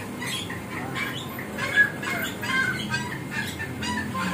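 Small birds chirping and squawking in many short, irregular calls, with one sharp click about two seconds in.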